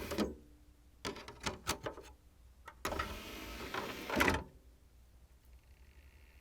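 DVD player disc tray: the tail end of the tray motor, then a cluster of plastic clicks and taps as a disc is handled in the open tray, then the tray motor running again as the tray closes, ending in a knock as it seats. Near the end a faint steady hum starts.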